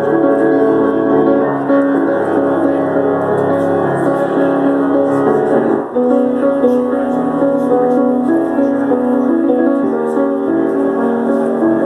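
Piano playing held chords that change every second or so, with a brief dip about six seconds in before the next chord.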